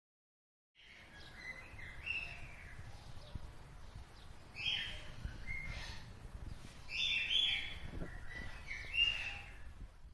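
Birds chirping in short bursts of phrases, four times, over a low background rumble.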